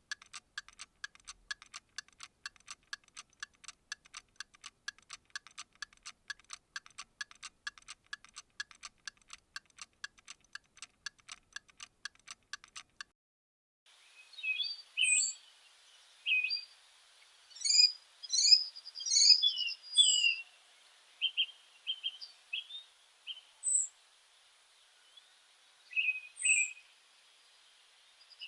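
An even run of sharp clicking chirps, about four a second, stops about halfway through. After a short pause, birds chirp and sing irregularly, with short falling whistles and trills among the calls.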